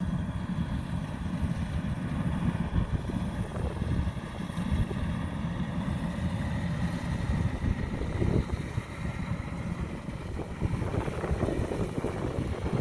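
Kubota DC-105X combine harvester's diesel engine and threshing machinery running steadily under load while it cuts standing rice.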